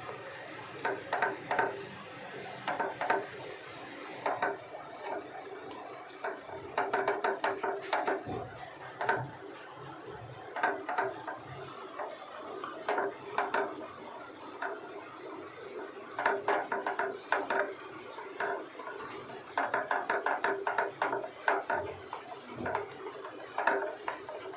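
Spatula stirring and scraping milk and milk powder in a nonstick frying pan, in repeated short runs of scraping strokes, as the mixture cooks down into instant mawa. A faint hiss runs under the first few seconds.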